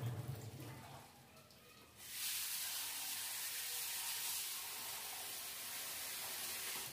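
Kitchen tap turned on about two seconds in, water running steadily into a bowl of shelled beans, and cut off at the end.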